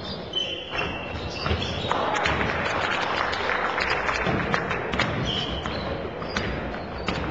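Basketball game sounds on a wooden gym floor: the ball bouncing and sneakers squeaking as players run. The sounds get busier and louder for a few seconds in the middle.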